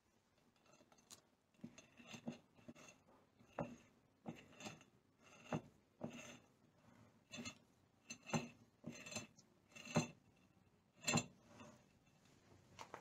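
Irregular series of sharp metallic clicks and clinks, each with a brief ring, roughly one every half second to a second: bare metal parts of a small four-stroke moped engine knocking together as the flywheel and loose cam chain are handled.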